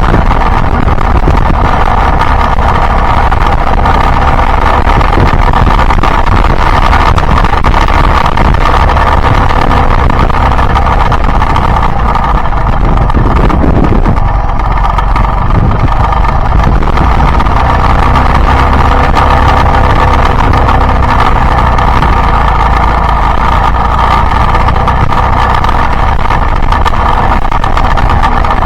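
Yamaha Byson motorcycle's single-cylinder engine running steadily under way.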